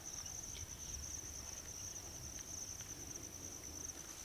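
Insects trilling steadily at a high pitch, over a faint low rumble.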